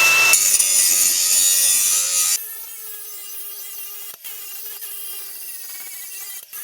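Grinding wheel sharpening the steel cutting edge of a mower blade: loud, hissing grinding for about two and a half seconds. The grinding then stops abruptly, leaving a quieter steady whine with a few sharp clicks near the end.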